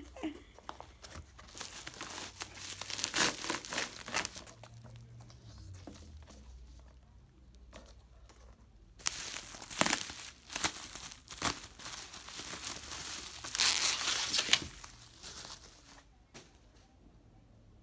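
Unboxing noises: a cardboard mailer box being torn open and plastic bubble wrap crinkling and rustling as it is pulled off, in two bouts of irregular crackling, the second one louder.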